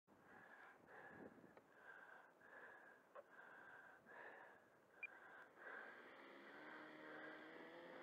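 Faint, evenly spaced swishing steps through dry grass, about one and a half a second. About five and a half seconds in, a steady motor hum starts and slowly rises in pitch.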